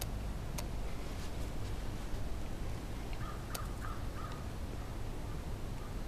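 A crow cawing: a quick series of about four short, faint caws about three seconds in, with another near the end, over a steady low rumble.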